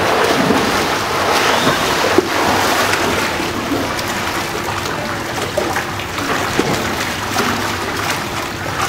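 Children splashing and kicking in a swimming pool: a continuous wash of splashing water with scattered small slaps.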